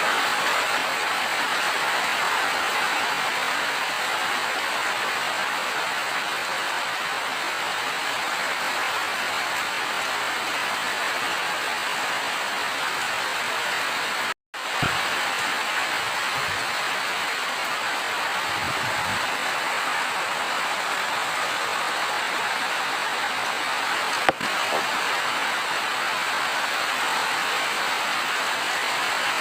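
Steady rain falling, an even hiss. About halfway through it cuts out completely for a moment, and there is a single sharp click a little later.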